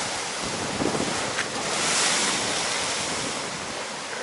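Rough sea surf breaking and washing against a stone harbour wall, swelling loudest about two seconds in, with gusts of wind rumbling on the microphone.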